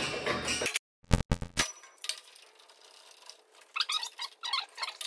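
Light metallic clinks and rattles as the steel protective cap is taken off a welding gas cylinder: a few sharp clicks about a second in, then a cluster of clinks near the end.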